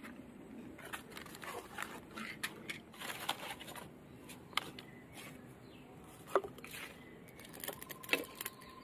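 Faint crackling and rustling of paper and plastic catching fire in a clay mud stove, with a few sharp knocks as firewood sticks are laid in.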